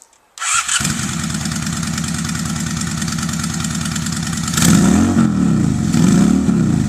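Honda bobber motorcycle with Harley mufflers starting up about half a second in and settling into a steady, loud idle. From about four and a half seconds in the throttle is blipped twice, the exhaust note rising and falling with each rev.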